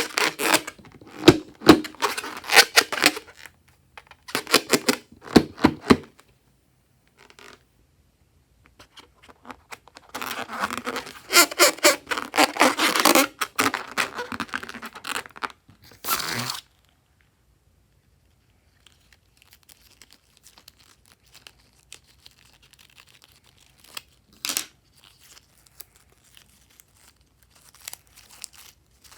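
Fluffy slime being squeezed, pressed and stretched by hand, giving dense runs of sharp sticky crackles and pops. The crackling dies down after about 16 seconds to faint scattered clicks, with one short burst near the end.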